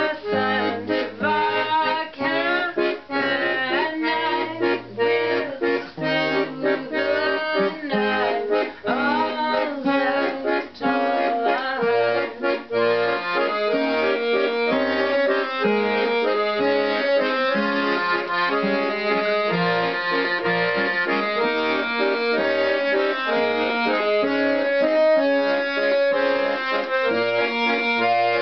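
Piano accordion and strummed acoustic guitar playing a song together. Sharp guitar strums stand out for the first twelve seconds or so; after that the accordion's held chords and melody carry the music.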